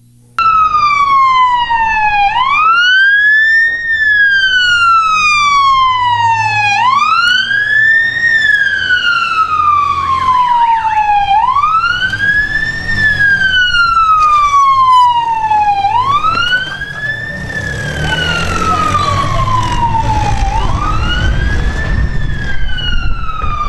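A wailing siren starts abruptly about half a second in. Each cycle rises quickly and then falls slowly, repeating about every four and a half seconds. Underneath is a low rumble of engines and road noise, which gets heavier in the last third.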